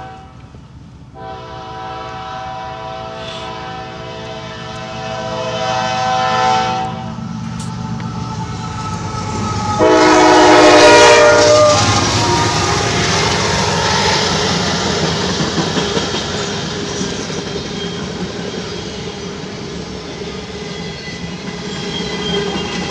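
Freight locomotive horn sounding for the grade crossing: a long chord blast in the first seconds, then a second, louder blast about ten seconds in as the locomotive reaches the crossing. After that comes the steady rumble and clickety-clack of covered hopper cars rolling past.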